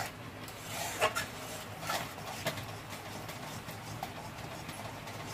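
Spoon scraping and knocking against a metal kadai while a thin yogurt gravy is stirred: a handful of short scrapes and taps roughly a second apart, over a faint low steady hum.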